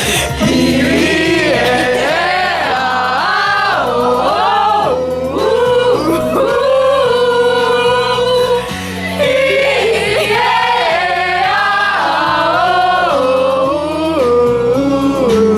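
Several voices singing together over musical accompaniment, with low chords changing about once a second under the melody.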